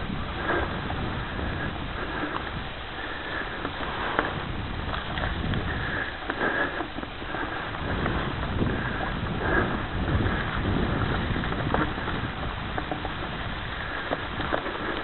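Mountain bike rolling fast along a leaf-covered dirt trail: wind buffeting the microphone over the knobby tyres' rolling noise, with scattered knocks and rattles from bumps in the trail.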